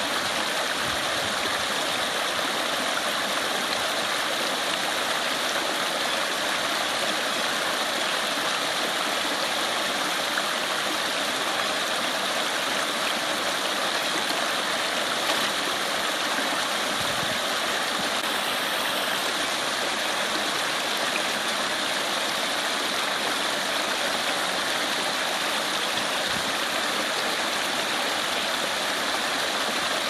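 Small waterfall on a brook running with spring snowmelt, water spilling over rocks in a steady, even rush of splashing.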